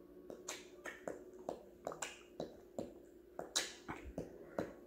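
A man making quick, sharp mouth clicks in a loose rhythm, about three a second, playing with a baby.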